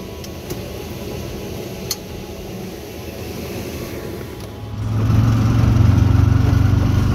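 Auto-rickshaw engine running quietly, with a single click about two seconds in, then much louder with a steady low hum from about four and a half seconds in as the three-wheeler pulls away and drives.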